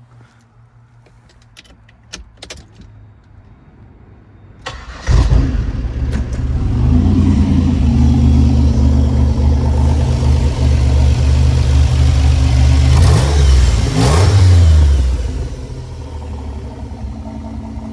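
A 1988 Pontiac Fiero GT's 2.8-litre V6 is started after a few light clicks, catching suddenly about five seconds in and running loud and fast. It is revved up and down a couple of times, then settles to a quieter, steady idle near the end.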